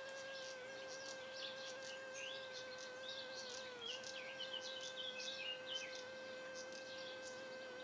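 Redstarts chirping, with a quick run of short calls about two-thirds of the way through, over a steady buzzing hum.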